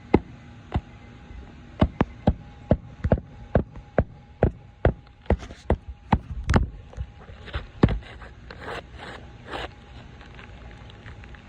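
A hand hammer driving a roofing nail through an asphalt shingle: a run of about seventeen sharp strikes, roughly two a second, then softer scraping as the shingle is handled near the end.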